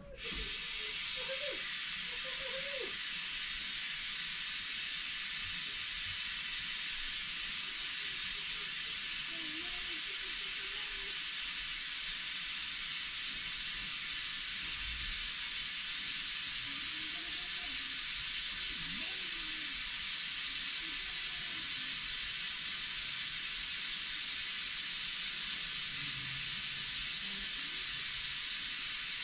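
Compressed-air vacuum brake bleeder hissing steadily as air rushes through its venturi, starting abruptly and never changing: it is drawing old fluid out through the left-hand rear brake's bleed nipple.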